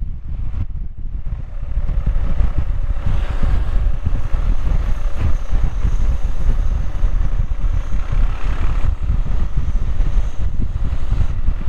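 BMW R1100GS motorcycle on the move, its flat-twin boxer engine running steadily under heavy wind rush on the microphone. It eases off briefly just after the start.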